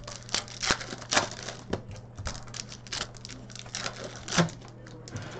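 Trading cards being handled and flipped through by hand: a run of light, irregular snaps and taps, about two a second.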